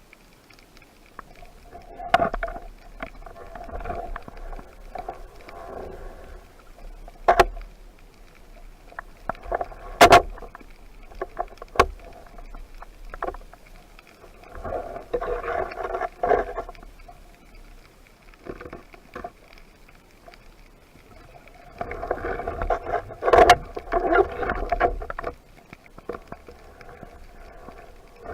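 Water sloshing and rushing around a spearfisher's camera in swells, with several sharp knocks, the loudest about ten seconds in.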